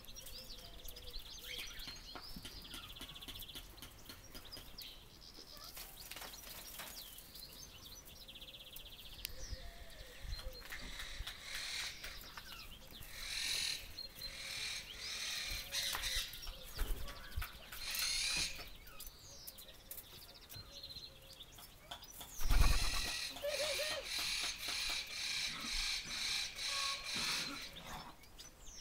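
Aviary birds chirping and calling, with laughing doves cooing and laughing in the background. A low thump comes a little past the middle, then a run of evenly repeated chirps at about one and a half a second.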